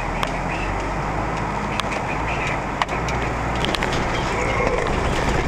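Steady low rumble of a 4x4 driving slowly over a rough, rutted dirt trail, heard from inside the cab, with a few sharp knocks and creaks as the vehicle jolts over the ruts.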